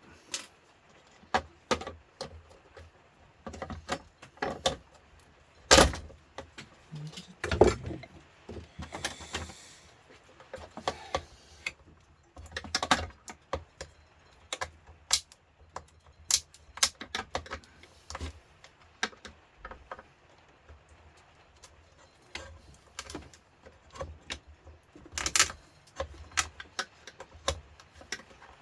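Irregular clicks, clinks and knocks of small metal and plastic parts being handled as a George Foreman grill is taken apart. The loudest knocks come about six and eight seconds in and again near the end.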